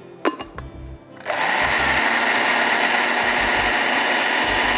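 Countertop blender switched on about a second in and running steadily at full speed, pureeing chikoo fruit with milk. A few short clicks and knocks come just before it starts.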